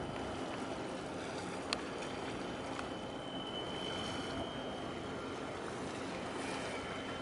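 Steady wash of wind and water as a large container ship moves past under way, with a faint steady high tone and one sharp click a little under two seconds in.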